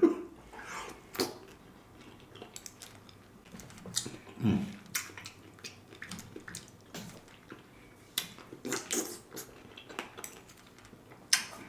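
Eating sounds from a bowl of fruit in coconut water: a spoon clicking against the bowl and quiet chewing, as scattered short clicks and smacks with a soft thump about four and a half seconds in.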